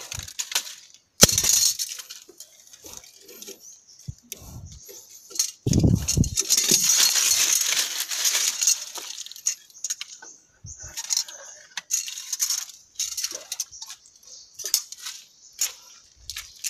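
Dry leaves and twigs crackling and snapping, with scattered clicks and knocks as a bamboo-and-wood trap set among roots and rocks is handled and the ground is trodden. A loud click comes about a second in, and the crackling is thickest from about six to nine seconds in, with a few low thumps.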